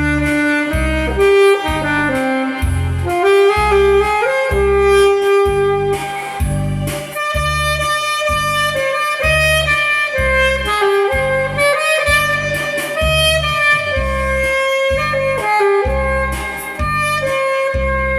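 Saxophone playing a slow, held melody over a backing track with a steady bass beat.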